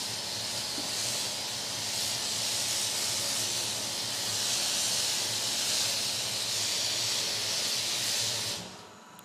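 Steady hiss of a pressure washer lance spraying onto the car. It falls away sharply near the end.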